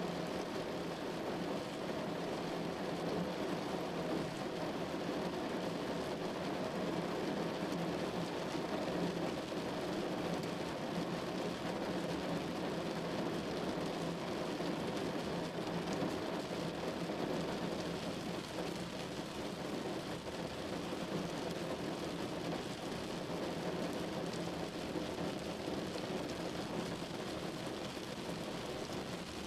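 Steady rain falling on a window, an even hiss with no breaks or swells.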